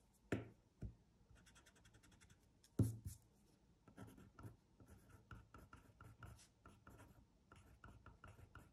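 Pencil writing letters on paper: faint, quick scratching strokes, one after another from about four seconds in, after three brief taps in the first three seconds.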